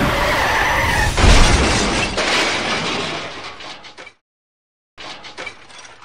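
A loud crash with breaking, shattering noise about a second in, over a rushing noise, fading over the next few seconds and then cutting off abruptly. Near the end there is light plastic clatter as a toy train is handled on its plastic track.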